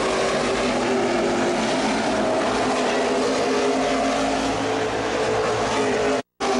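NASCAR Nationwide Series stock cars' V8 engines running at racing speed as a pack goes round the road course: a steady din of several engines at once, their notes overlapping and shifting. The sound cuts out for a split second near the end.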